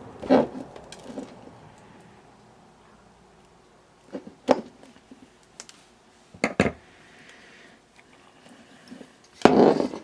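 Scattered clicks and knocks of small tools and parts being handled on a workbench, with a denser clatter near the end.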